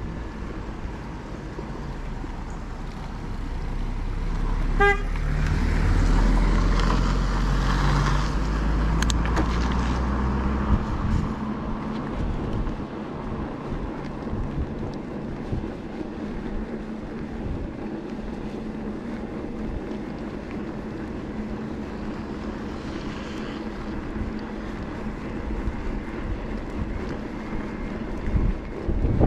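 A motor vehicle comes up and passes close, its low running sound swelling and fading over several seconds, with a brief horn toot about five seconds in. After that there is a steady rush of wind over the microphone while riding.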